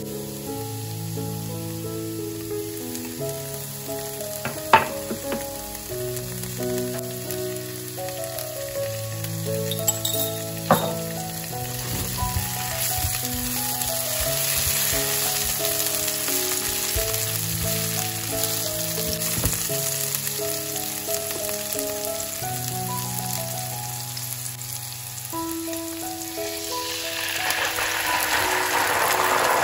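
Garlic and chili sizzling in olive oil in a nonstick pan, with two sharp taps, the sizzle growing louder about halfway through. Near the end, crushed tomatoes are poured into the hot oil and the sizzle turns louder and rougher. Soft background music plays throughout.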